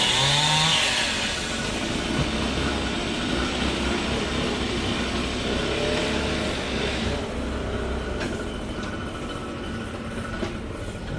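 Heavy tree-removal machinery running steadily, a low engine rumble under a dense rushing noise that thins out about seven seconds in.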